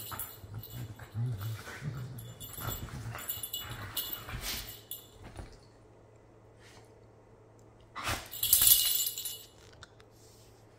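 Two dogs play-fighting, with low play growls and mouthing noises through the first five seconds, then a lull, and a louder burst of rough noise about eight seconds in.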